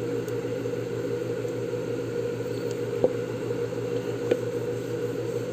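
Steady low background hum, with two light plastic clicks about three and four seconds in as a squeegee card is pressed over polarizer film on an LCD gauge panel.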